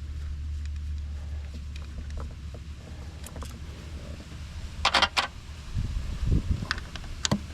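A steady low hum that fades out after about two seconds, then a short loud clatter about five seconds in, followed by a few knocks and clicks: the sounds of handling tools or parts.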